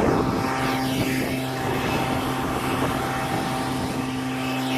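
A motor or engine running steadily with an even drone, and a burst of scuffling knocks in the first second.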